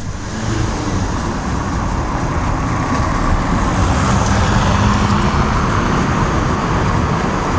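Street traffic: a car drives past over cobblestones, the noise swelling to its loudest about four to five seconds in.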